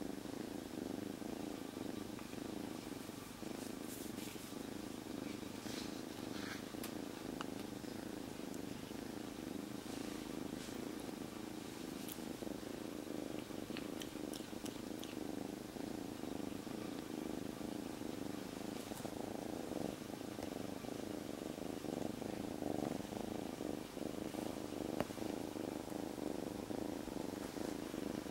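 A black-and-white kitten purring loud and steady without a break.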